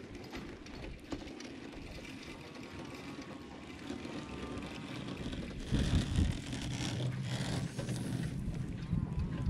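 Wind buffeting the microphone in a low rumble, growing louder in gusts from about six seconds in.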